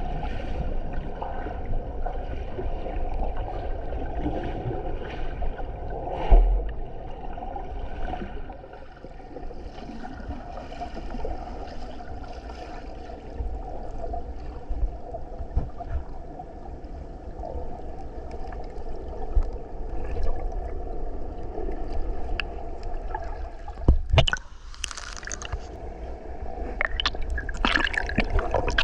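Water rushing and gurgling steadily, with a few sudden louder splashes or knocks about six seconds in and again near the end.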